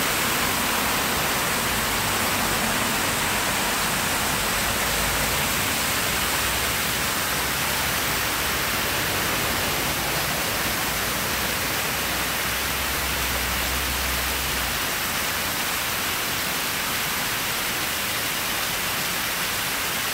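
Waterfall cascading down a rock face into a pool: a steady rushing hiss. A low rumble sits underneath for a few seconds past the middle.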